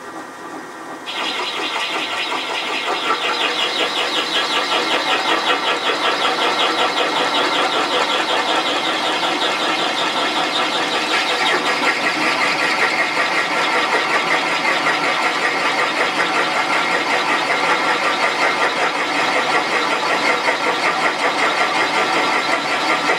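Rotating guide-top cutter biting into a new valve guide and its cast-iron guide boss, a steady grinding cutting noise that jumps louder about a second in as the tool engages and shifts in tone about halfway through. The tool trims the guide top, cuts the guide and boss outside diameter and chamfers the guide in one pass, to take a Viton valve seal.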